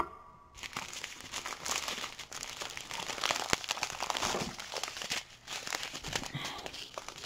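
Small clear plastic bags of diamond-painting drills crinkling and rustling as they are handled and sorted, starting about half a second in.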